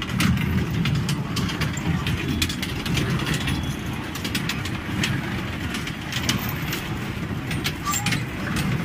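Children's ride-on mini-train rolling around its small steel track: a steady low rumble with scattered clicks and clacks from the wheels and rail joints.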